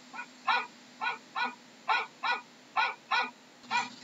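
A dog barking over and over in a steady rhythm, a little more than two barks a second.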